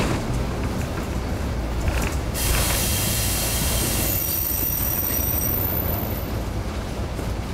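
KiHa 52 diesel railcar running with a steady low rumble; about two and a half seconds in a loud hiss comes up, then turns into a high metallic squeal from the running gear for about two seconds.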